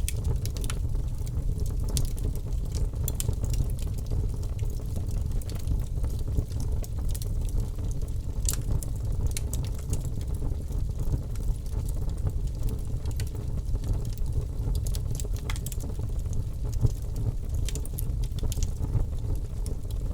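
Wood fire burning in a fireplace: a steady low rumble with scattered, irregular sharp crackles and pops from the burning logs.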